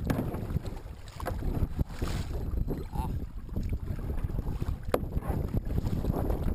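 Kayak paddling: a double-bladed paddle dipping and splashing, with a few sharp knocks. Steady wind rumble on the microphone runs underneath.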